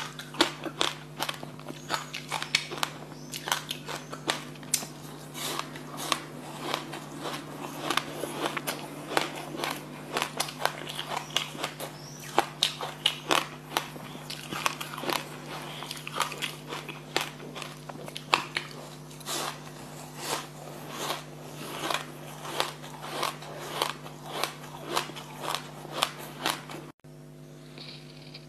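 Close-miked crunching and chewing of black sesame seeds: a dense run of small crackling bites, several a second. It breaks off abruptly near the end.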